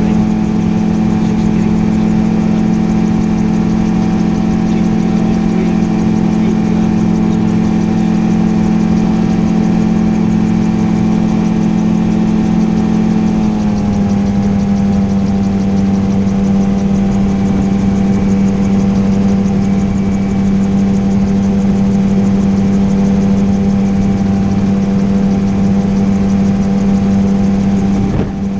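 Gyroplane engine running steadily in flight, heard from inside the cockpit, with an even droning tone. About halfway through the pitch drops slightly as power comes back a little, then holds steady.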